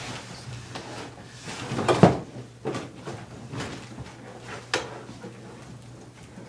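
Scraping and knocking of a large cardboard box as a lawnmower is wrestled out of it, with the loudest thump about two seconds in and a few lighter knocks after.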